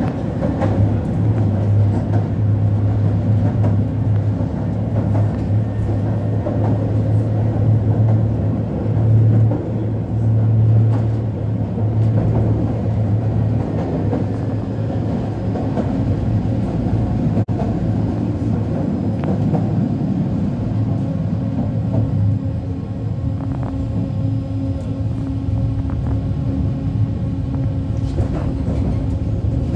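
Inside a moving old Konstal tram: a steady motor hum under the rumble of the wheels on single track, with occasional faint clicks from the rails.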